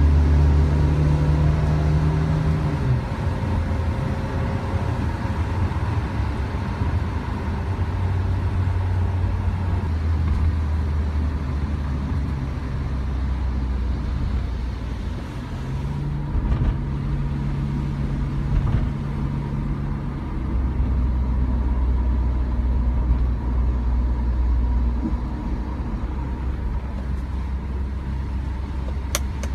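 Steady low road and engine drone inside the cabin of a 2018 Toyota Rush at speed on a wet road, heard from the rear seat and then the rear cargo area. The low hum shifts pitch a few times as the engine speed changes.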